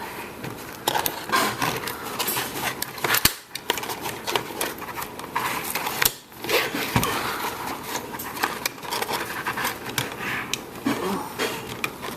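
Toy packaging being handled and pulled at: rustling and scraping with many quick clicks and taps, and two sharper snaps, one about three seconds in and one about six seconds in.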